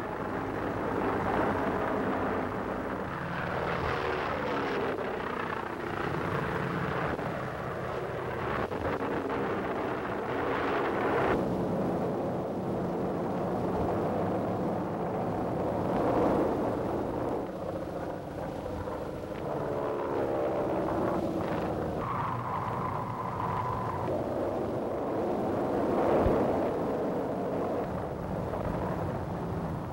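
Propeller-driven biplanes flying overhead in a large formation, their piston engines droning together in a steady drone whose pitch wavers up and down as they pass.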